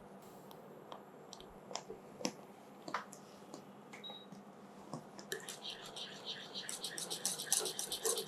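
Spatula stirring mango puree and melting sugar in a pan: a few scattered taps and wet smacks, then from about five seconds in a quicker, continuous run of sticky scraping and squelching.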